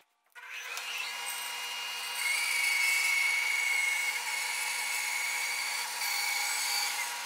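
Bandsaw starting up and running, then its blade cutting into a log of spalted alder from about two seconds in, the cut louder than the idling saw, with a high whine over the cutting noise.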